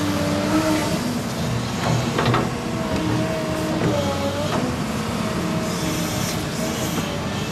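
Halla HE220LC excavator's Cummins diesel running under work, with whining tones that rise and fall over the engine drone. A few sharp metallic clanks come about two seconds in.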